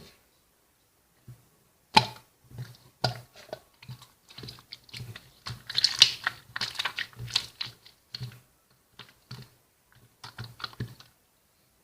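Slime being squeezed and worked by hand, giving a rapid, irregular run of sharp clicks and pops that starts about two seconds in and stops about a second before the end.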